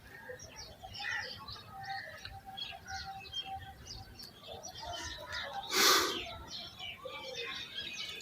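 Pet birds chirping continuously in many short high chirps, with pigeons cooing low now and then. A single loud, harsh sound stands out about six seconds in.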